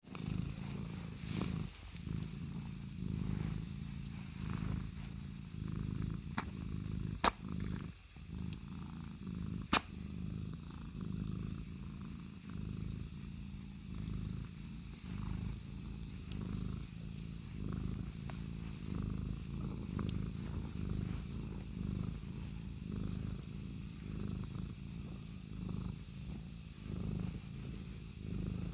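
A Scottish Fold cat purring steadily, the low purr rising and falling about once a second. A few sharp clicks stand out around seven and ten seconds in.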